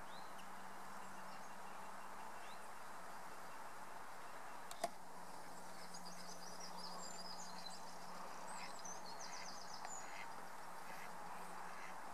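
Small birds singing in woodland, with quick chirping trills from about six seconds in, over a steady rural background hiss and a faint low hum. A single sharp click about five seconds in.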